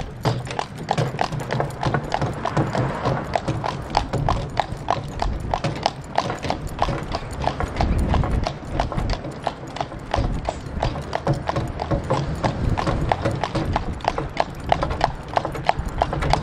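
Hooves of a draft horse stallion clip-clopping in a quick, steady rhythm, several beats a second, as it moves out under harness, over a steady low rumble.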